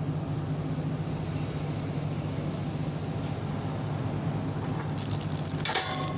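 A steady low mechanical hum, with a single sharp knock near the end.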